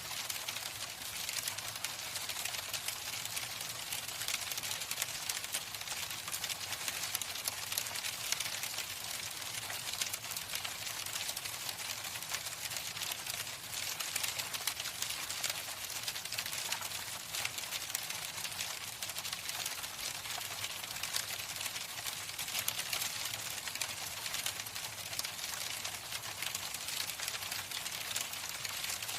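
Hail falling: a dense, steady rattle of countless small ticks that keeps up without a break.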